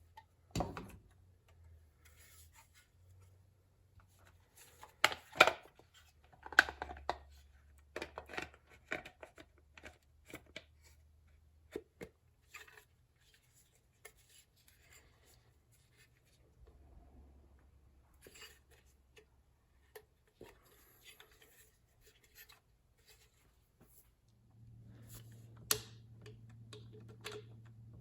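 Scattered clicks, taps and scrapes of tools and parts being handled, loudest about five to seven seconds in; near the end a steady low hum starts with light ticking over it.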